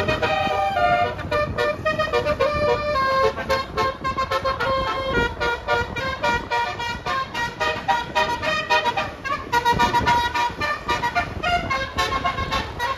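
Multi-tone 'telolet' bus horn (basuri) playing a tune in short, quick pulses, the 'dut dut' style.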